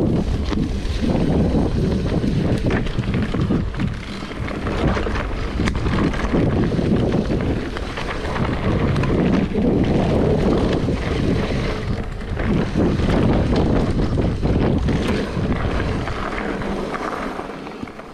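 Mountain bike riding down a rough forest dirt trail: wind buffeting the camera microphone over a steady rumble of tyres, with frequent knocks and rattles from the bike over roots and bumps. It grows quieter near the end.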